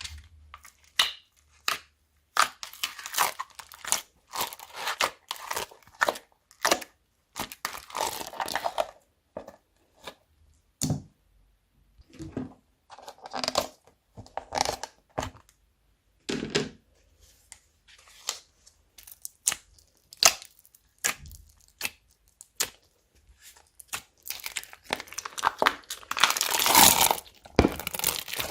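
Slime being pressed, stretched and mixed by hand: a run of short, irregular squishing sounds with brief gaps between them, growing longer and denser near the end.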